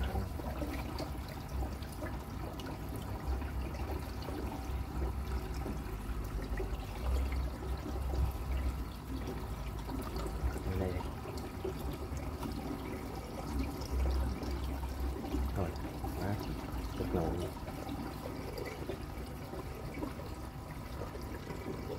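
Aquarium filter running: water trickling and pouring steadily into the tank through the filter media.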